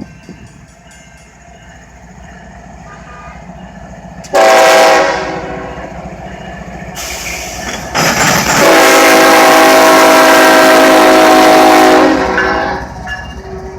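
Diesel locomotive horn, Conrail 8098's, sounding a short blast and then a long blast of about four seconds, over the low rumble of the locomotive's engine.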